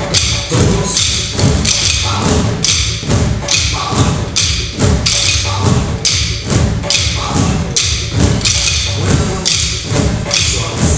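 A group beating drumsticks on exercise balls set on buckets, in a steady rhythm together with upbeat backing music.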